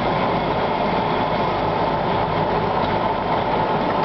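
Humvee's diesel engine idling steadily, heard from inside the cab.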